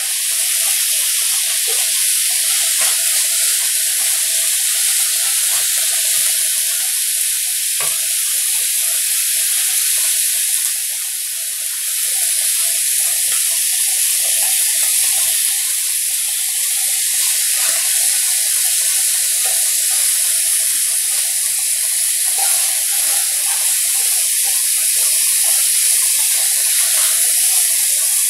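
Beef rib meat sizzling on a hot iron griddle: a steady hiss with scattered small pops, dipping briefly about eleven seconds in.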